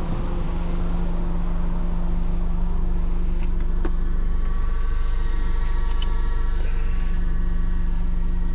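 A motor running steadily with a low hum. About three seconds in, a faint high whine joins it.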